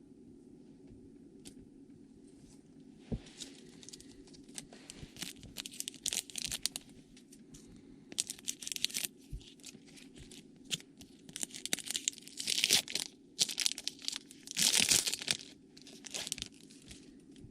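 A trading-card pack wrapper being torn open and crinkled by hand: a run of short rips and rustles, with the loudest tearing about three-quarters of the way through.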